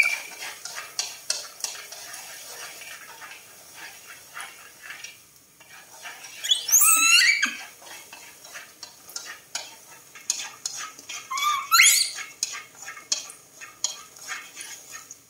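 A utensil stirring and scraping corn kernels around a metal wok, with many light clicks. Twice, about 7 s and 12 s in, a baby macaque gives a loud, sharply rising squeal.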